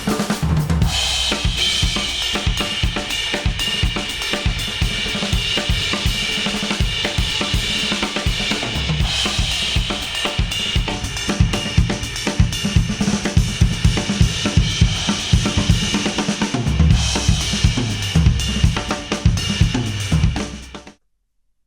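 Instrumental music with a full drum kit (kick, snare, hi-hats, cymbals) and heavy bass, played back through Apple earphones and recorded in an artificial ear simulator. It cuts off suddenly near the end.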